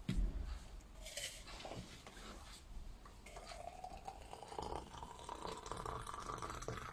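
A knock at the start, then water being poured into a cup, its pitch rising steadily as the cup fills from about three seconds in.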